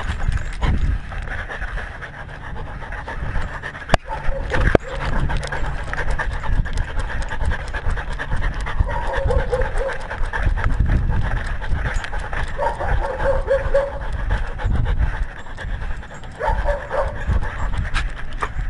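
A dog panting right at the microphone of a camera on its collar as it walks, with rough low rumbling from the camera jostling and two sharp knocks about four seconds in.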